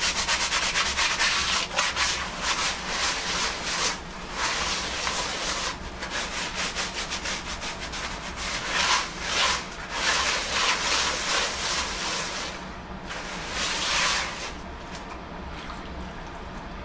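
Gritty scrubbing of a new plastic gold pan with a scratchy sponge, dish soap and dirt, in rapid rasping strokes. The grit scours off the factory oil to season the pan so that gold won't float. The scrubbing eases about twelve seconds in, gives one last burst, then stops.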